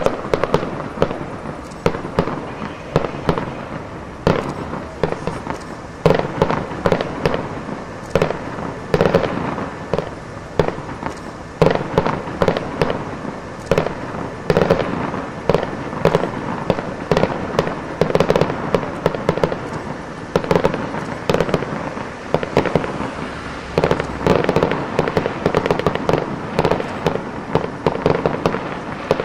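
Aerial fireworks display bursting in a continuous barrage: sharp bangs several times a second, one after another without a break.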